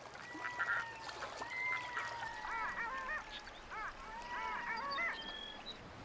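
Red-throated loons calling on the water: long, level, wailing notes broken by two runs of quick, arched, cackling notes.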